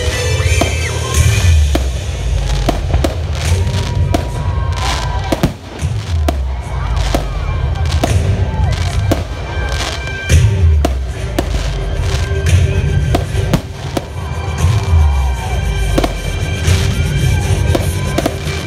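Aerial fireworks bursting: a rapid run of bangs and crackles, with deep booms every few seconds, over music playing underneath.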